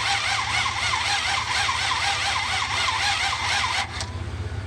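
1966 Buick Riviera GS's 425 Nailhead V8 cranking on the starter without firing: a crank-no-start. The starter's whine rises and falls about three times a second with the compression strokes, then cuts off near the end.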